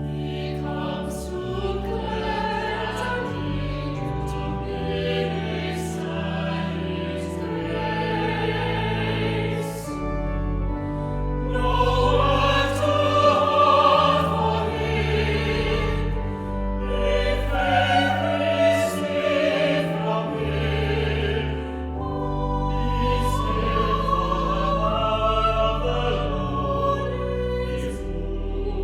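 Choir singing with instrumental accompaniment, over held bass notes that change every second or two.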